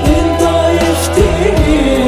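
Pop song with drums, bass and a wavering melody line.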